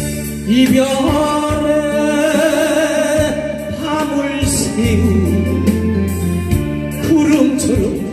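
A man singing a Korean trot song live into a handheld microphone over instrumental accompaniment with a steady bass line. His voice holds long notes with a wavering vibrato, with short breaks between phrases.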